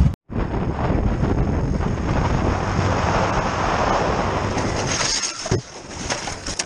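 Wind rushing over a helmet camera's microphone with a motorcycle engine running beneath, as the bike rides along the road. The noise drops a little about five seconds in, and a short thump follows.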